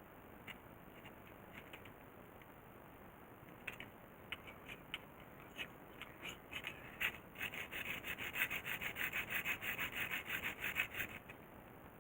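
Small sharp mechanical clicks from hand work: a few scattered single clicks, then a fast run of about eight clicks a second for some four seconds.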